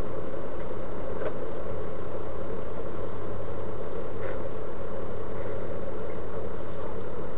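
Steady engine and road noise of a vehicle driving, heard from inside its cab through a dash camera's microphone, with a couple of faint clicks along the way.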